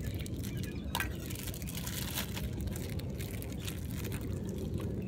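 Thin plastic bag crinkling in the hands as sticky rice is packed into it, in scattered short crackles, over a steady low rumble.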